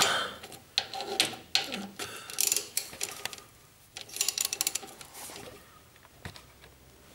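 Hand ratchet wrench clicking in two short runs of rapid clicks, between a few single metallic clicks and knocks of tools.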